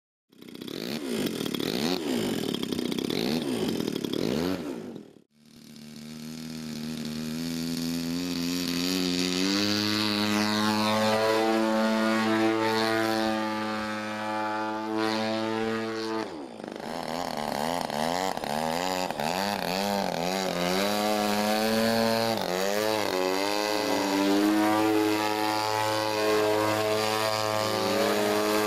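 62cc two-stroke gas engine of a large radio-controlled aerobatic plane running with its propeller, its pitch rising, falling and wavering as the throttle is worked. The sound breaks off sharply twice, about five and sixteen seconds in.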